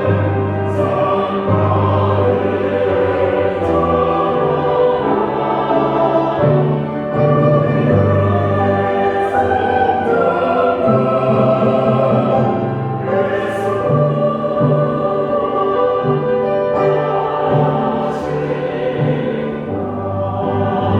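Church choir singing a hymn anthem, many voices together over sustained low accompaniment notes, with the choir's 's' consonants cutting through now and then.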